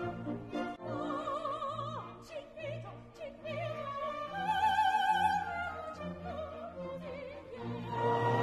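Background music: operatic singing with a wide vibrato over an orchestral accompaniment, with a louder held note about halfway through.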